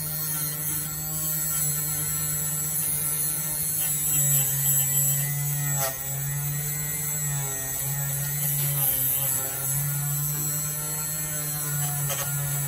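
Electric motor of an automatic wire-cutting machine for separating phone screen glass, running with a steady hum that steps slightly up and down in pitch every second or two as it cuts.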